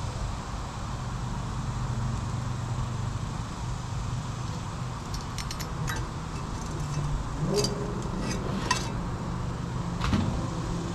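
Metal parts of a small hermetic compressor clinking and knocking as they are handled and worked loose, a few short rings among the clicks in the second half, over a steady low hum.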